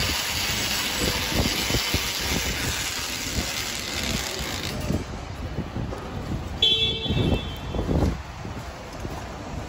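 Metal shopping cart rolling and rattling over concrete, over a hiss of car noise that drops about five seconds in. About seven seconds in, a short car-horn beep.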